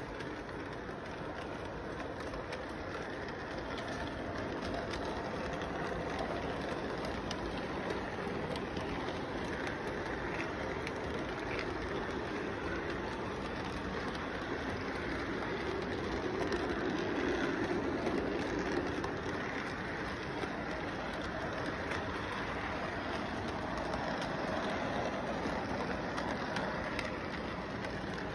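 Model electric train running around its track with a steady rolling rumble, growing louder about halfway through as the cars pass close by.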